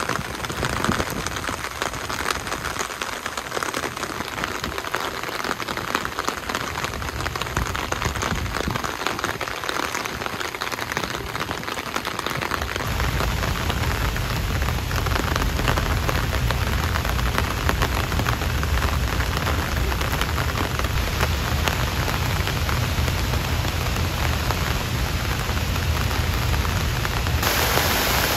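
Steady rain falling, a dense patter of drops with no voices. About halfway through it gets louder and fuller, with more low rumble under the patter.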